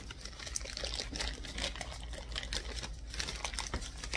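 Plastic mailer bag rustling and crinkling as it is picked at and torn open by hand, a continuous run of small crackles and clicks.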